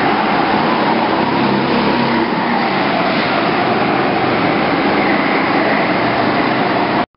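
Go-kart engines running hard in an indoor karting hall as karts lap the track, a loud, steady mechanical din with a wavering engine note. It cuts off abruptly near the end.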